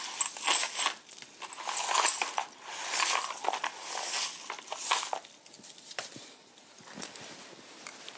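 Crunching and clinking of hard objects in quick bursts. After about five seconds it eases into scattered light clicks.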